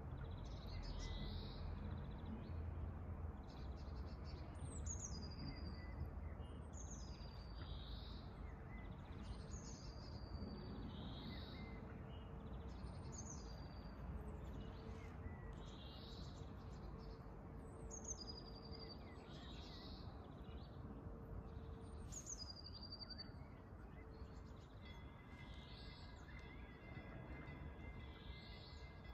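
Songbirds singing: short, high whistled phrases that fall in pitch, repeated about every two seconds, over a faint steady low rumble of outdoor background noise.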